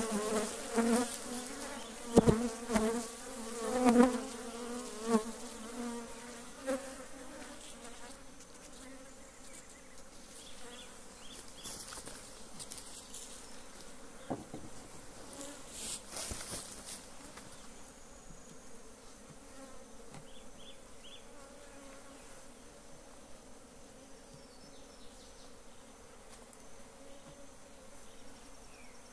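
Swarm of honeybees buzzing around open hives. The buzz is loudest in the first few seconds, wavering in pitch as bees fly close by, then settles to a steady fainter hum. A few sharp knocks of wooden hive boxes being handled come in the first half.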